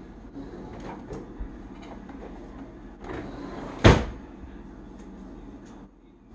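Soft handling sounds of refrigerated cinnamon roll dough being worked apart over a metal baking tray, with faint clicks and rustles. One sharp, loud knock about four seconds in.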